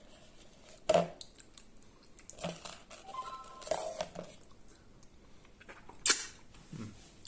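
Kitchen utensils clinking and scraping against a bowl and plate while cream cheese frosting is scooped and spread. There is a sharp knock about a second in and a louder one about six seconds in.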